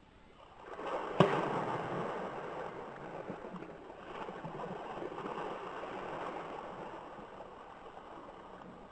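River water splashing and churning at the bank, starting with a sudden sharp splash about a second in, then continuing for several seconds and slowly dying away.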